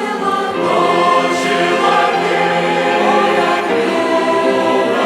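Church choir singing a hymn in Russian, with long held notes.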